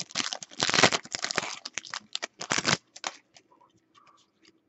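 Foil wrapper of a football trading card pack being torn open and crinkled for about three seconds, then a few soft clicks and taps as the cards are handled.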